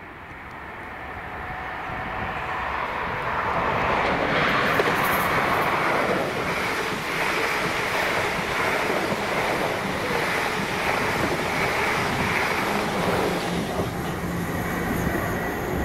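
Electric multiple unit running through the station at speed: the rumble and wheel noise build over the first few seconds, stay loud while the coaches go by, and ease off near the end.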